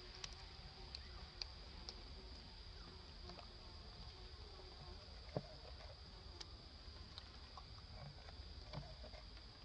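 Faint steady high-pitched drone of insects in the surrounding woodland, with scattered small clicks and taps, the sharpest about five seconds in.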